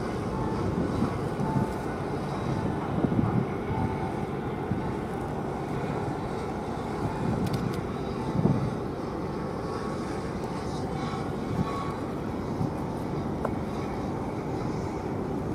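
Steady low rumble of a large RORO cargo ship's engines and its assisting tugboat, with a few brief louder swells about three and eight seconds in.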